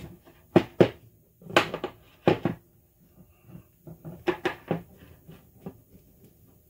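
Irregular sharp metallic clicks and knocks as a grease gun's coupler is loosened and worked off a grease fitting on a suspension link, with the gun and hose handled against the workbench.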